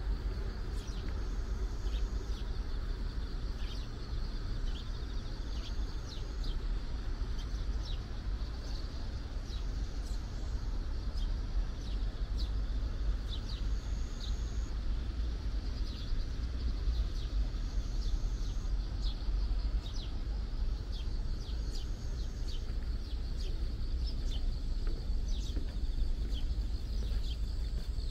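Outdoor park ambience: many short bird chirps and calls, scattered irregularly, over a steady low rumble.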